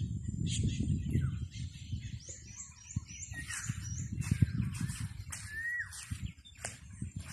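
Birds chirping and calling, with many short chirps and one clear whistled note that rises and falls a little before six seconds in. Under them is a low rumble on the microphone, heaviest in the first half, with a few soft knocks.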